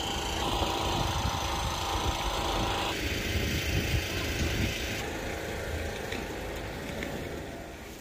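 Outdoor town-centre street ambience: a steady background of distant traffic and a low rumble. The background changes abruptly a few times.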